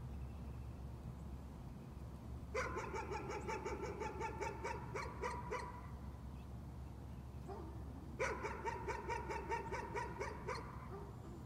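A dog barking in two rapid bouts of about three seconds each, several short high barks a second, with a pause between them, over a steady low background rumble.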